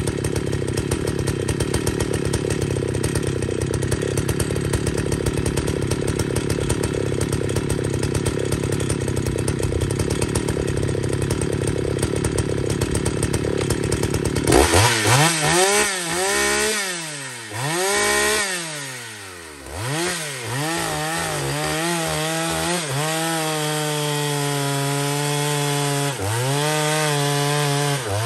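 Jonsered 920 two-stroke chainsaw running steadily at full throttle in a cut for about the first fourteen seconds. Then it is out of the wood, revved up and down several times, held at a steady speed for a few seconds, and drops off sharply at the very end.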